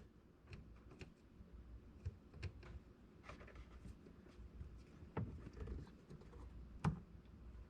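Faint scattered clicks and small knocks of hands working plastic electrical connectors loose, with a sharper click about 7 seconds in.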